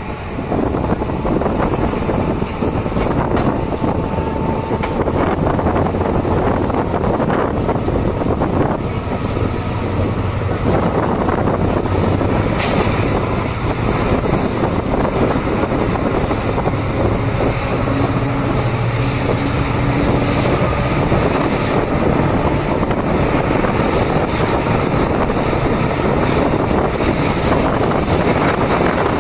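EMD WDG4 diesel locomotive's 16-cylinder two-stroke engine running hard, a loud steady mechanical din with a high whine that climbs slowly in pitch during the first half.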